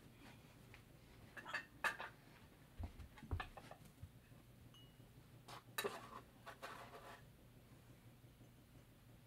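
Light clicks, clinks and knocks in three short clusters, from hamster cage accessories being handled and set down in the cage.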